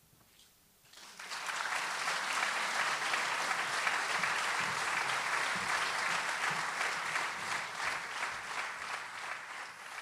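Audience applauding, starting about a second in and holding steady, thinning slightly near the end.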